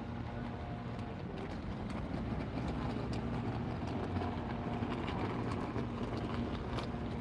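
Steady drone of city traffic, with an engine hum holding a few steady tones, and scattered light clicks over it.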